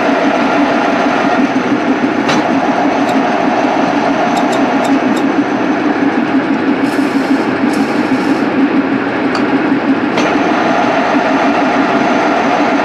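Milling machine running at 350 rpm with its power feed on, driving a 10 mm HSS drill bit steadily into a metal block. The steady machine hum carries a few sharp ticks and a short hiss for over a second around the middle.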